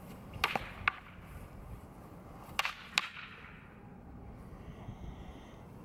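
Short staffs clacking together in a sparring exchange: three quick sharp strikes about half a second in, then two more a couple of seconds later.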